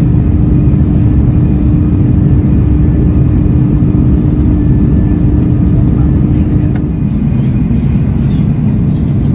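Airbus A330-200 cabin noise during the climb after takeoff: a loud, steady low rumble of the Rolls-Royce Trent 700 engines and rushing air. A steady hum within it drops out about seven seconds in, and the sound eases slightly.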